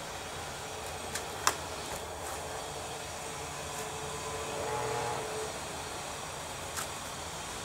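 Steady outdoor background hiss with a few sharp clicks, loudest about a second and a half in, and a brief low hum that swells and fades about two thirds of the way through.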